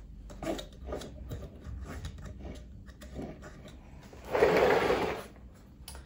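Hands working on a vacuum cleaner's plastic housing and motor wiring: small clicks and knocks of plastic parts, with a louder scrape lasting about a second about four seconds in.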